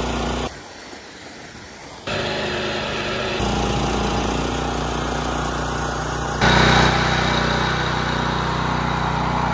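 Engine of cricket pitch-preparation machinery running steadily. The sound changes abruptly several times, about half a second, two, three and a half and six and a half seconds in, as if separate stretches of the work were cut together.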